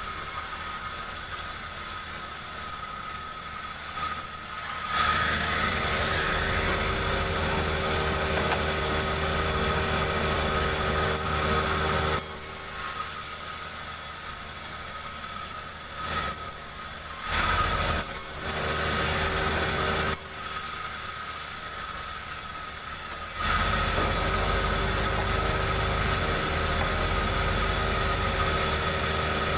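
Gasoline chainsaw splitting a jengkol log, switching back and forth between a steady idle and long full-throttle runs in the cut. The throttle opens sharply several times, and each loud run holds steady before dropping back to idle.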